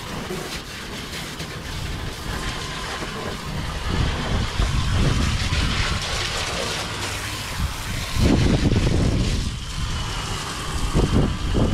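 Water spraying from a garden hose onto the boat, with wind gusting on the microphone, loudest about eight seconds in.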